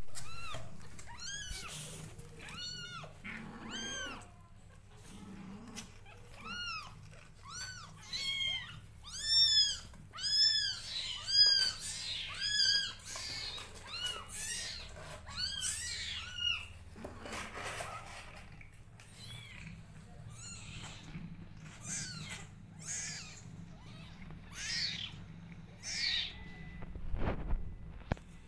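Young kittens mewing over and over, short high cries that rise and fall, about one or two a second. They are crying for their mother cat, who is close by.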